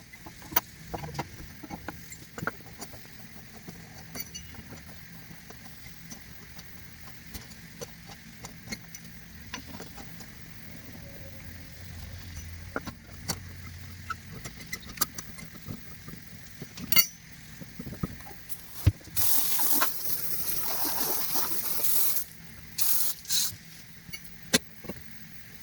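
A loud hissing spray lasting about three seconds, followed by two short bursts of spray, among scattered light clicks and knocks.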